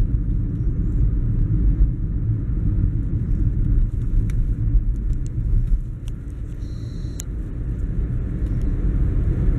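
Steady low rumble of a car driving, heard from inside the cabin, easing a little past the middle.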